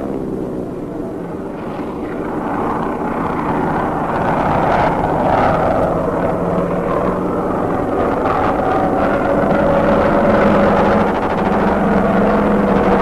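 Propeller fighter planes' piston engines droning, their pitch rising and falling as the planes dive and pass, on an old film soundtrack. A few sharp cracks come about five and eight seconds in.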